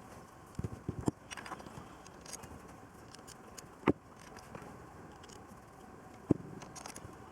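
Scattered light clicks and knocks, like small hard objects being handled and set down: a quick cluster about a second in, then single sharp taps in the middle and about six seconds in.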